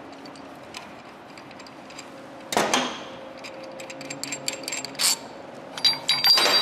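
Light metal clicks and clinks of a steel bearing puller being unbolted by hand and lifted off a CV joint, with a sharper knock about two and a half seconds in and a few knocks and a ringing clink near the end.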